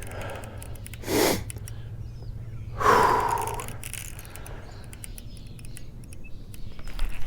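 A man's heavy breathing while straining against a big fish: a sharp noisy exhale about a second in, then a longer, louder breath with a voiced grunt about three seconds in. Faint bird chirps and a low steady hum lie underneath.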